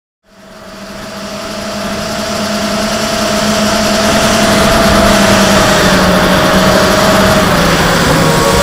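Motors and 5050 three-blade props of a 250-size FPV quadcopter whining, picked up by its onboard camera over a steady rush of wind. The sound fades in over the first few seconds and the whine dips slightly in pitch near the end.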